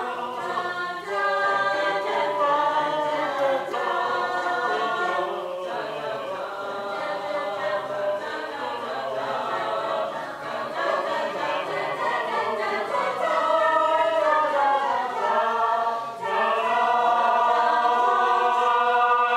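A choir singing in sustained chords, rising to a louder held chord about sixteen seconds in.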